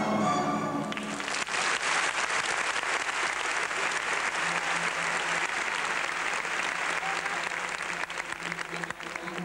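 Orchestral music ends about a second in and a crowd applauds with steady clapping; faint music returns near the end.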